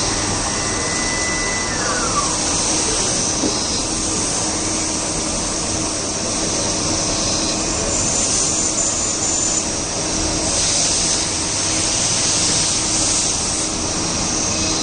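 CNC lathe machining a part under flood coolant: a steady hiss of coolant spray over the machine's running noise and a steady hum. A high whine near the start drops in pitch about two seconds in.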